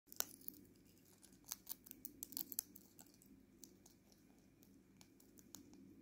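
African grey parrot cracking sunflower seed husks in its beak at a ceramic bowl: a run of small, sharp cracks and clicks, thickest in the first two and a half seconds, then more scattered.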